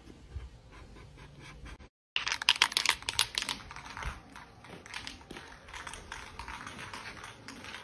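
Aerosol spray-paint can being shaken, its mixing ball rattling in quick, uneven clicks. The rattling starts about two seconds in and goes on to the end.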